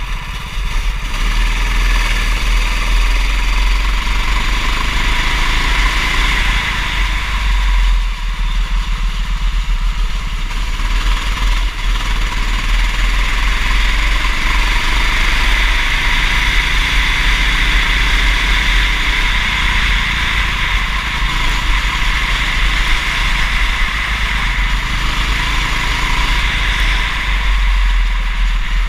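Kart engine running continuously through a race, its pitch rising and falling as it accelerates and eases off. It dips briefly about eight seconds in, then climbs again, under a steady deep rumble.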